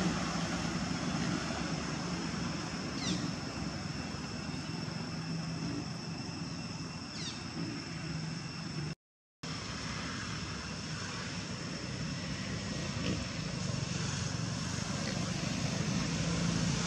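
Steady low outdoor rumble with a hum and a faint high steady whine, broken by two short falling chirps, about three and seven seconds in. The sound cuts out completely for half a second about nine seconds in.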